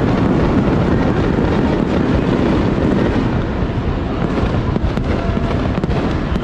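Fireworks going off in a continuous dense barrage: a steady crackling rumble with no single clear bang.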